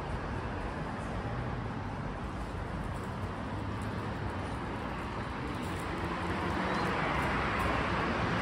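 Road traffic noise from passing vehicles, swelling louder near the end as a vehicle comes closer.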